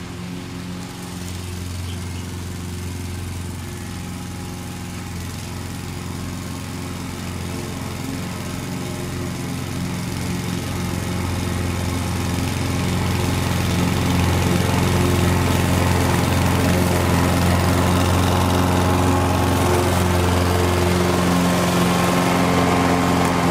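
Honda HR 214 lawn mower's GXV120 single-cylinder four-stroke engine running steadily under load while cutting grass. It grows louder as the mower comes closer, then holds level from a little past halfway.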